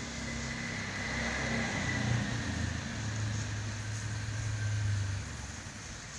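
A low, steady motor hum, like a vehicle engine running, that fades out about five seconds in.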